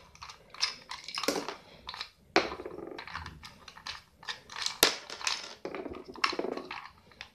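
Red plastic toy screwdriver working the screws out of a plastic take-apart toy car and the parts being handled: irregular plastic clicks, creaks and scrapes.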